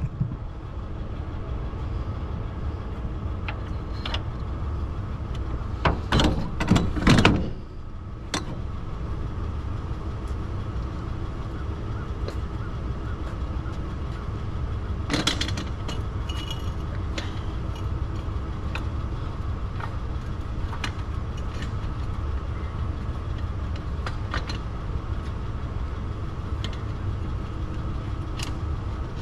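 Tow truck's engine idling steadily, with a burst of metallic clattering about six seconds in and a shorter one about fifteen seconds in, plus scattered light clicks.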